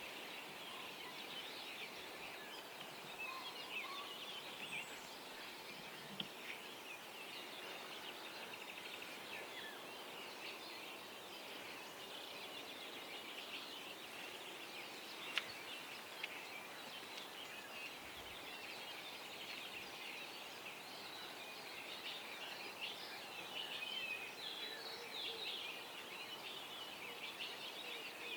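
Dawn chorus of many small songbirds singing and chattering at once, with a single sharp click about halfway through.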